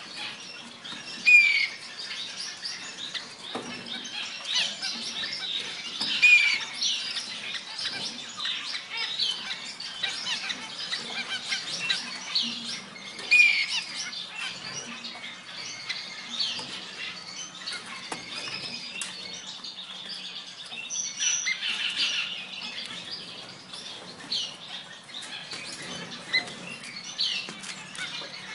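Many captive finches chirping and calling in a dense, continuous chorus of short high notes, with three louder short falling calls about one, six and thirteen seconds in.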